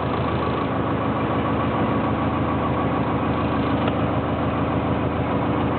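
Small fishing boat's engine idling steadily with a fast, even beat.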